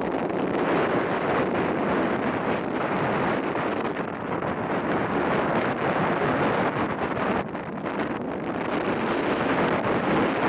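Wind buffeting the microphone, a steady rushing noise that eases briefly about four seconds in and again near the middle.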